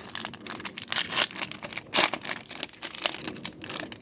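Wrapper of a 2023 Topps Composite Football trading card pack crinkling and tearing as it is opened, a dense run of irregular crackles.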